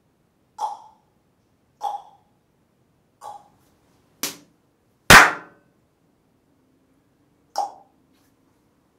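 Single hand claps sounding out the rooms' echo: three short claps in a bedroom, then in a bathroom a faint click, a much louder clap that rings out longer, and one more clap near the end.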